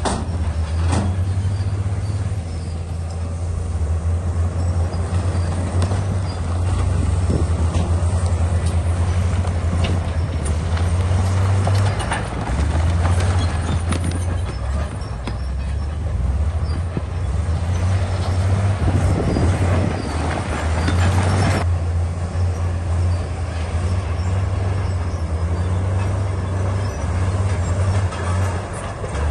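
Bulldozer's diesel engine running steadily under load, with rock and stone scraping and knocking as it is pushed, heavier through the middle.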